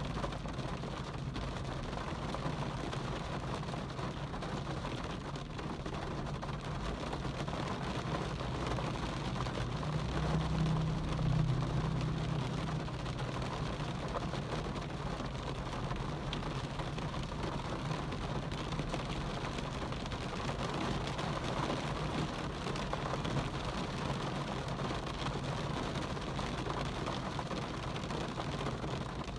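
Steady rain falling, with a low rumble underneath that swells for a few seconds about ten seconds in.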